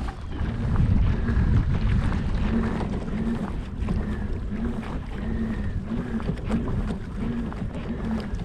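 Wind buffeting the microphone with a steady low rumble. A faint short tone repeats about every half second from about two seconds in.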